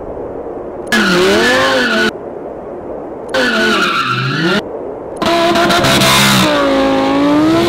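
Supercharged Lamborghini Huracán V10 revving hard during burnouts and donuts, with its tires skidding and squealing. It comes in three loud, abruptly cut bursts, the engine pitch dipping and rising in each.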